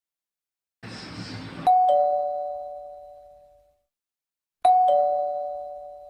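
Two-tone ding-dong doorbell chime sound effect, played twice about three seconds apart, each pair of tones ringing out and fading slowly. A short rushing noise comes just before the first chime.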